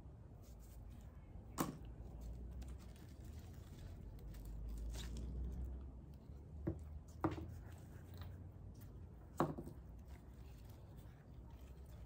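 Hands working plants into a hanging basket: rustling of leaves and potting soil with a low rumble near the middle. Four sharp plastic clicks and taps come from a plastic plant tag and a black plastic nursery pot being handled.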